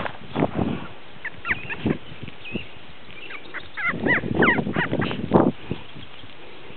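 Brief high squeaky animal chirps in two quick runs, one about a second in and another around four seconds in, with rustling in the grass near the start and again around four to five seconds in.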